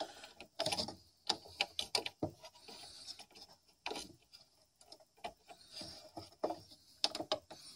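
Scattered small clicks, taps and rubbing as wires are pushed into place with metal tweezers against a CED player's sheet-metal chassis, irregular and quiet.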